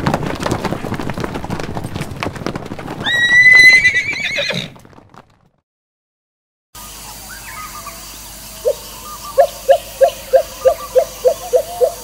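A herd of horses galloping, with a dense patter of hoofbeats and one loud, wavering whinny about three seconds in, before the sound fades out. After a short silence, a different scene's sound comes in, with a quick run of short repeated calls at about three a second.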